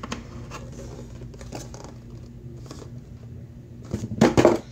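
Handling noise: a cardboard product box turned over in the hands and a plastic radio picked up, with a few soft ticks and rustles over a faint steady hum. A louder, brief sound comes about four seconds in.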